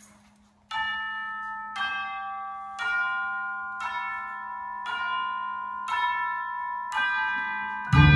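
Mallet percussion ensemble playing a slow run of struck, bell-like chords, about one a second, each left ringing. Near the end the full ensemble of marimbas and vibraphones comes in loudly.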